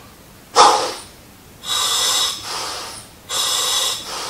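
Scuba regulator's alternate air source (octopus second stage) being test-breathed: a short sharp blast of air about half a second in, then two breaths, each a loud hissing inhalation through the demand valve followed by a softer exhalation. The regulator is working properly, giving air easily.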